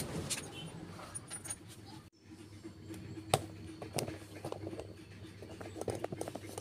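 Light metal clicks and clinks of tools and engine parts being handled, scattered and faint, over a low steady hum. There is a brief dropout about two seconds in.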